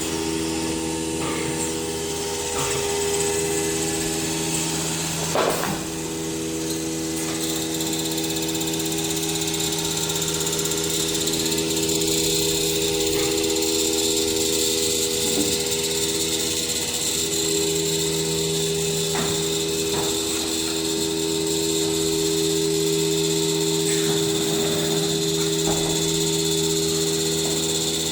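Heliner H-1228AD nesting CNC router running, a steady mechanical hum with a hiss over it and a few short knocks.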